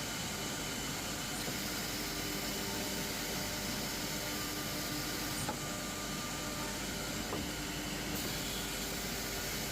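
Six-sided CNC panel drilling machine with two high-speed drilling units running: a steady mechanical whir and hiss with a few faint clicks.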